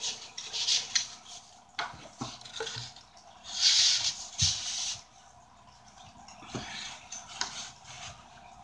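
Cardboard mailing tubes and box being handled, with scattered light knocks and taps, and a burst of crinkling packing paper about three and a half seconds in.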